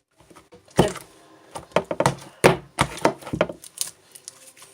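Sticky homemade glue slime being slapped and smacked by hand, a run of sharp, irregular smacks. The slime is still too sticky and clings to the hands.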